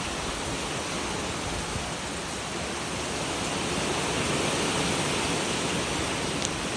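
Storm wind and rain from a tropical storm rain band: a steady rushing noise that swells about four seconds in, with a few sharp ticks near the end.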